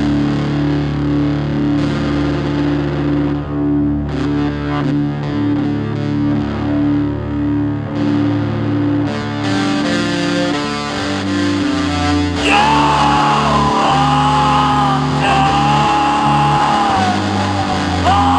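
Music: layered sustained notes over a pulsing, repeated low note, with a higher, wavering lead melody coming in about twelve and a half seconds in.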